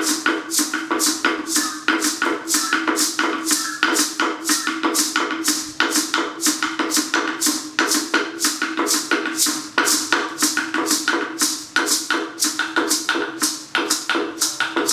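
Two carved wooden log slit drums (Maya tunkul) struck with sticks in a fast, even rhythm, about four strokes a second, over a steady low ringing note.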